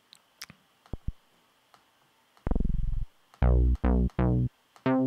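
Steinberg Retrologue software synthesizer playing a synth bass preset. After a few faint clicks, about five short, deep bass notes sound in the second half, each starting bright and quickly turning dull.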